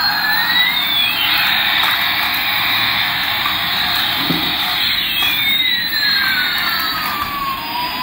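Toy Airbus A380's electronic jet-engine sound effect: a steady jet-like hiss with two whistling tones that glide together about a second in and apart again from about five seconds.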